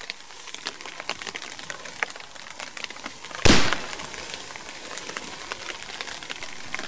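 A single shot from a .460 S&W Magnum handgun about three and a half seconds in: one sharp, very loud crack with a short echo trailing off. Before and after it, scattered small ticks of rain dripping on the foliage.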